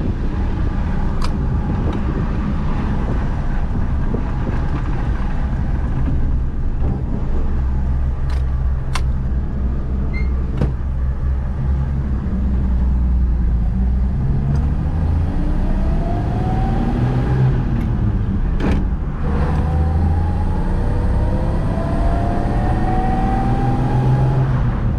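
1953 Chevrolet panel truck's inline-six engine pulling under way, heard from inside the cab. The engine note climbs twice as the truck accelerates, with a short break between the two climbs about three quarters of the way through.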